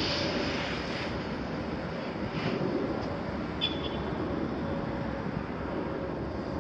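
Diesel engines of a Volvo crawler excavator and a wheel loader working together, a steady rumble as the excavator raises its boom and the loader drives forward. There is a short sharp sound about three and a half seconds in.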